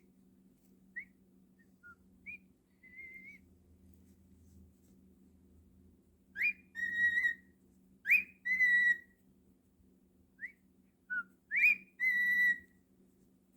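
Cockatiel whistling: a few short chirps, then three loud phrases, each a quick rising whistle followed by a held note of about half a second.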